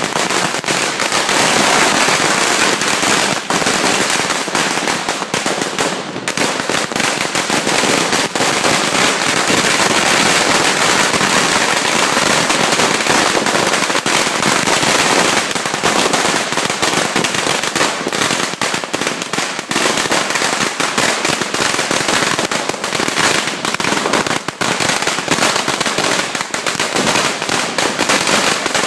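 A 100,000-shot firecracker string going off, a continuous rapid crackle of bangs without a break.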